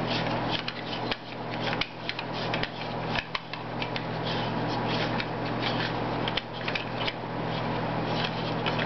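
Fore end of a Just Right Carbine being unscrewed by hand, the threads and the handguard against the hands giving a continuous scraping with many small clicks as it is turned round and round.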